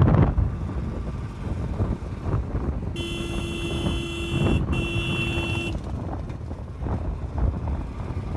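Wind buffeting the microphone and road rumble from a moving vehicle, with a vehicle horn sounding twice about three seconds in: a longer blast, a brief break, then a shorter one.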